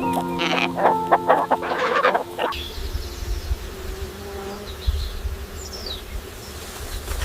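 Soft music with bursts of animal sound, giving way after about two and a half seconds to an outdoor recording: a low wind rumble with a few faint high chirps.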